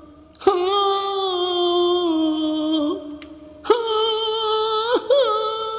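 A voice wailing in three long, drawn-out held notes: the first about two and a half seconds long and sagging slightly at its end, the other two higher and shorter.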